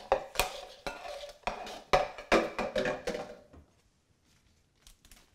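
Kitchenware being handled: a run of light knocks and clatters, including a glass bowl being carried and things touched on the counter. It stops about three and a half seconds in, leaving only faint ticks.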